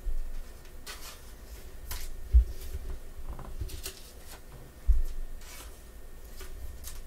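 Trading cards being handled by gloved hands: short papery swipes and slides of card stock, several in a row, with two low thumps against the table about two and a half and five seconds in.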